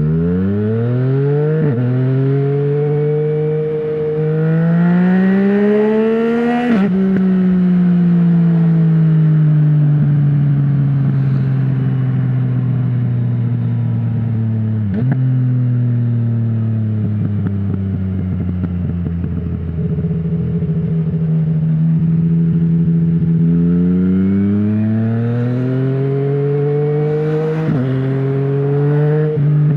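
Yamaha MT-09's inline three-cylinder engine through an Akrapovic full-system exhaust with no dB killer, under hard riding. It revs up through a quick upshift, climbs until about seven seconds in, then drops sharply and falls away steadily on a closed throttle, with a click of a gear change partway. It holds steady for a few seconds, then revs up again through another shift near the end.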